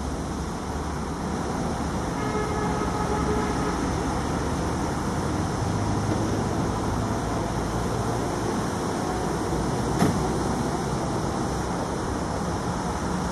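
Steady running of vehicle engines and road traffic, with a constant low engine hum and faint voices. A single short sharp knock comes about ten seconds in.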